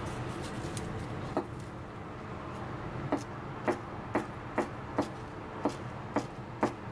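Chef's knife slicing a bundle of shiso leaves into thin strips on a plastic cutting board, the blade knocking sharply on the board: once about a second and a half in, then steadily about twice a second, over a low steady background noise.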